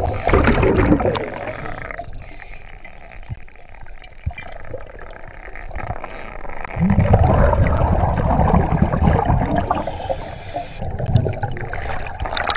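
Scuba regulator exhaust heard underwater: the diver's exhaled air bubbling out in gurgling rushes. One rush comes at the start, a longer one of about three seconds comes about seven seconds in, and a short one comes near the end, with softer water noise between.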